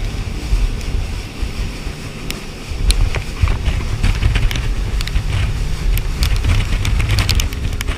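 Wind buffeting the microphone on a moving boat at sea: a heavy low rumble over the rush of water, with scattered sharp taps from about two seconds in.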